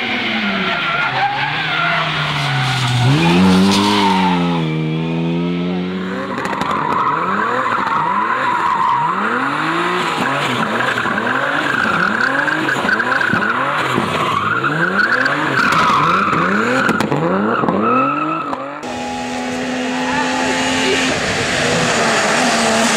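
Race car engines revving hard, the pitch falling and climbing through gear changes, then rising and dropping over and over about once a second while the tyres squeal. Two abrupt cuts change the scene, the last part holding a steadier engine note.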